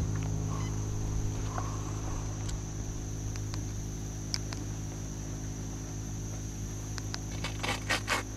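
Boat motor running steadily at slow trolling speed, a low hum with a constant high-pitched whine over it. A quick run of clicks comes near the end.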